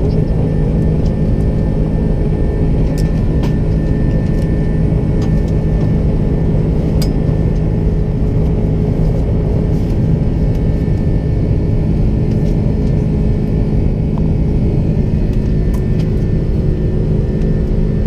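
Steady cabin noise of an Airbus A330 jetliner climbing out: a loud, even rumble of jet engines and airflow with a low steady drone and a few faint clicks.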